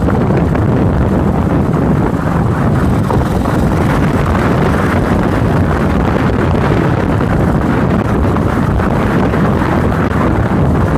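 Yamaha SRX400's air-cooled single-cylinder engine running steadily at speed, heard through heavy wind buffeting on a phone microphone mounted beside the fuel tank.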